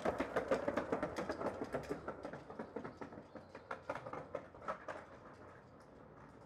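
Skateboard rolling over concrete paving slabs: a wheel rumble with rapid clacks as the wheels cross the slab joints, fading away over the last couple of seconds.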